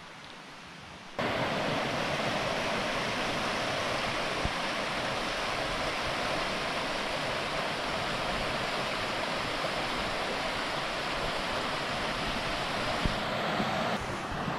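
Steady rush of a river's shallow rapids pouring over rock ledges, cutting in suddenly about a second in.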